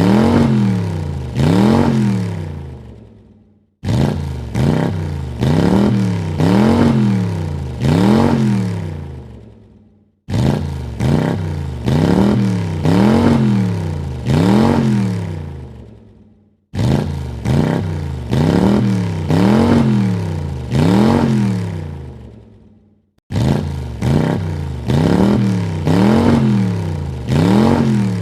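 Car engine revved in four quick blips, the pitch rising and falling with each, then dying away. The same burst of revs repeats about every six and a half seconds.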